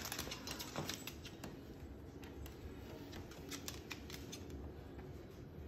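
Faint, irregular clicking and scratching from a Moluccan cockatoo biting and tugging at a plush puppy toy on a hardwood floor. The clicks come thickest over the first few seconds, then thin out.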